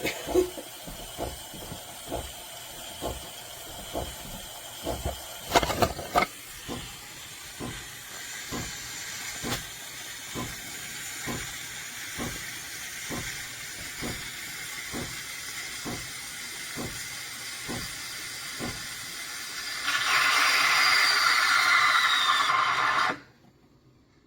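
Breville Barista Touch Impress steam wand automatically texturing milk in a stainless steel jug: a steady hiss with a regular tick about once a second. Near the end the hiss grows louder for about three seconds, then cuts off suddenly as the frothing cycle ends.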